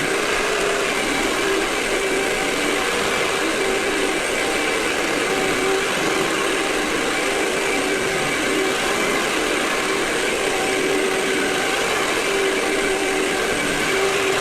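Vacuum cleaner running steadily: a continuous rush of air with a motor whine whose tones waver slightly.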